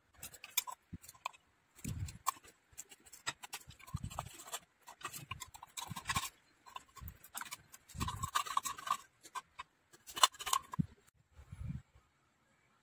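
Irregular small clicks, scrapes and soft knocks from hands working inside a plastic floodlight housing, with a blade scraping along its edge, as a battery is glued in place.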